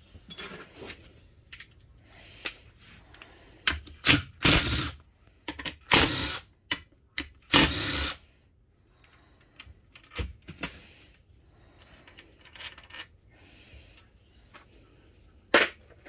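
Ratchet with a 12 mm socket clicking in short runs as bolts are backed out of an automatic transmission valve body, with sharp metal clinks of bolts and tools between. The longest runs of clicking come in the middle, about four to eight seconds in.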